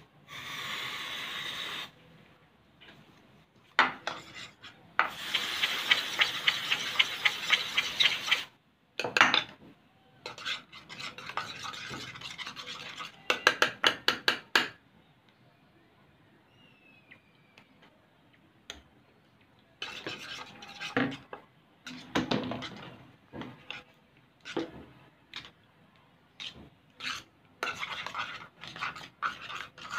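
Axe body spray hissing from its aerosol can in two bursts, a short one at the start and a longer one about five seconds in. Then a spoon stirs the glue and body spray mixture in a bowl, with quick irregular clicks and scrapes against the bowl.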